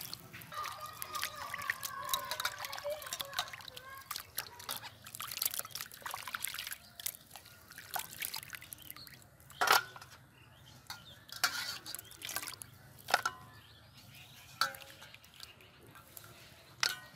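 Raw chicken pieces being washed by hand in a steel bowl of water: water splashing, trickling and dripping as pieces are lifted, squeezed and dropped back, with several sharper splashes in the second half.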